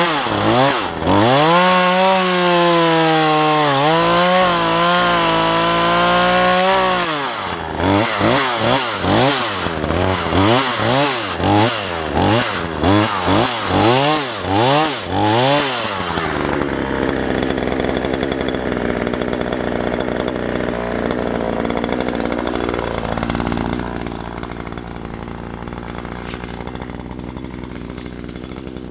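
Two-stroke chainsaw running at high revs with its pitch swinging up and down, then revved in quick bursts about once a second. About halfway through it drops to a steady idle, which grows quieter for the last few seconds.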